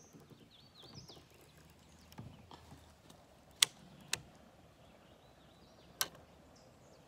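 Three sharp clicks of fishing tackle being handled, two about half a second apart midway and a third about two seconds later, over faint bird chirps.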